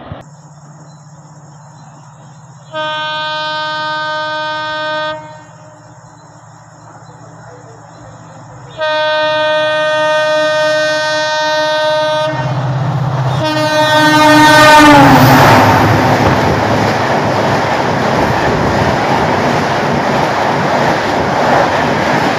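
Locomotive horn of an express train running through at speed: a short blast about three seconds in, a longer blast from about nine seconds, then a third blast that drops in pitch as the locomotive passes. Then the loud, steady rush and rattle of the passenger coaches passing close by.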